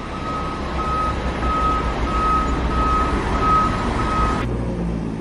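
Heavy vehicle's reversing alarm beeping steadily, about seven even beeps, over the low rumble of its engine; the beeps stop shortly before the end while the engine keeps running.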